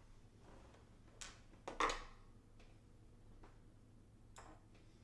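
A few light clicks and knocks of metal frame parts and screws being handled during assembly, the loudest about two seconds in.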